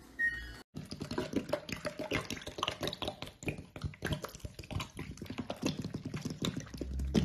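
A soap-soaked sponge being pressed and squeezed in a sink, giving dense wet crackling and squelching. Near the end, liquid is poured onto it.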